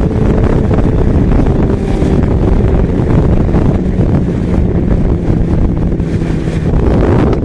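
Yamaha XJ6's 600 cc inline-four engine running at road speed, heard under heavy wind buffeting on the microphone.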